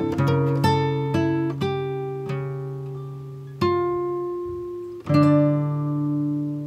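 Background music led by plucked guitar: single notes ring out and fade, with a strong new chord about three and a half seconds in and another about five seconds in.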